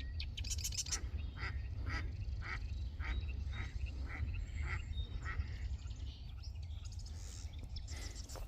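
Frogs calling: a run of about eight short croaks, roughly two a second, that stops after a few seconds.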